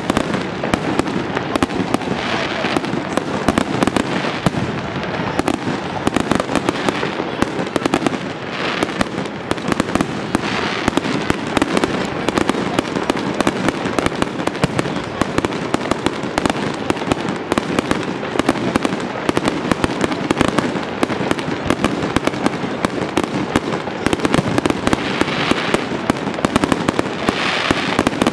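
Fireworks display: aerial shells bursting overhead in a dense, continuous barrage of bangs and crackles.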